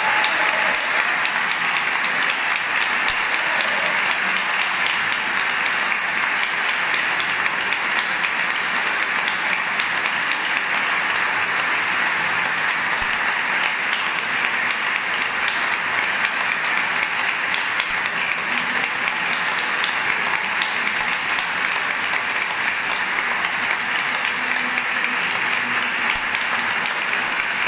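Audience applauding steadily in one long, even round of clapping after a choral piece.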